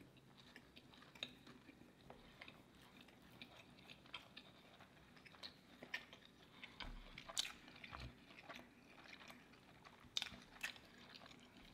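Two people chewing bites of crispy fried fish sandwich: faint, scattered mouth clicks and soft crunches.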